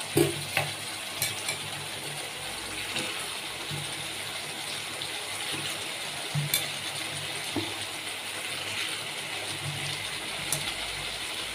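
Potato gravy simmering in a pan with a steady hiss as sliced button mushrooms are added, with a few sharp clicks and clinks, the clearest about six and a half seconds in.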